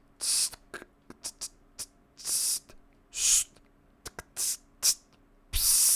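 Mouth percussion made as raw material for hi-hat samples: about four short hissing "tss" sounds mixed with a scatter of quick tongue and lip clicks, irregularly spaced.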